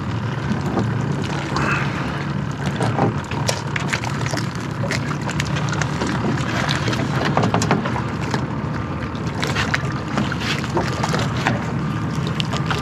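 Water lapping and slapping against the hull of a small fibreglass skiff in an irregular patter of short splashes, over a steady hiss of wind on the microphone.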